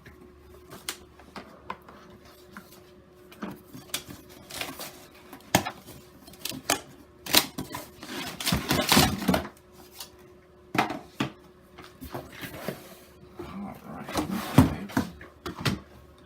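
Irregular clicks, knocks and rattles of a Stanley wet/dry vac's handle and wheels being handled and fitted onto its body, with a denser clatter about nine seconds in and a sharp knock near the end.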